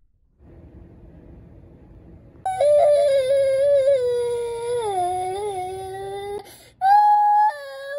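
A young girl crying aloud: one long drawn-out wail that slowly sinks in pitch, breaks off about six and a half seconds in, then starts again higher. It is preceded by a couple of seconds of faint low noise.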